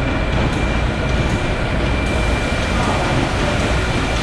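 Steady hum and rumble of bottling and packaging line machinery running, with a thin constant high whine.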